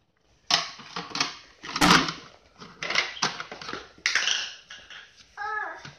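Plastic toy pots, cups and utensils clattering and knocking against each other and on a wooden toy kitchen as a child handles them: an irregular run of clicks and knocks.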